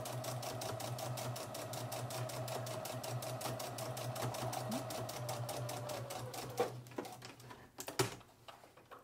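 Domestic electric sewing machine stitching steadily: a fast, even ticking of the needle over the motor's hum. It stops a little after six seconds in, followed by a couple of sharp clicks.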